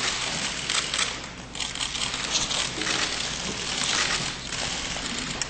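Many press cameras' shutters firing in rapid, overlapping bursts: a dense clatter of clicks with short lulls.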